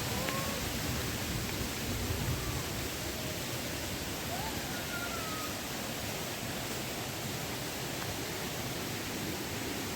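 Steady rush of falling water, with a few faint short chirps over it.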